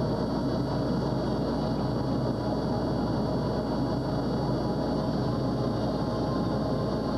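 Steady in-flight cockpit noise of an SR-71 Blackbird: an even, unchanging rush with a faint steady hum, with no change in level.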